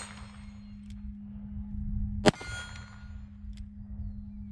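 A Cimarron Pistoleer single-action revolver in .45 Colt fires one shot about two seconds in, followed by a metallic ringing. The ring of a shot fired just before is still fading at the start, and faint short clicks of the hammer being cocked come before and after the shot. A steady low hum runs underneath.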